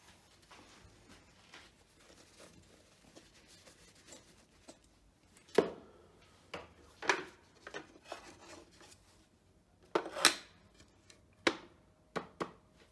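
Handling noises on a wooden workbench: a few separate knocks and clicks with some rubbing, as a flat hard case is picked up among the tools. The sharpest knocks come about halfway through and again shortly before the end.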